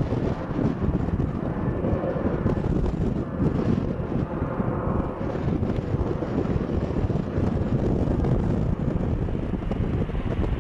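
Jet engines of a Boeing 787 Dreamliner on final approach, a steady rushing noise, mixed with wind buffeting the microphone.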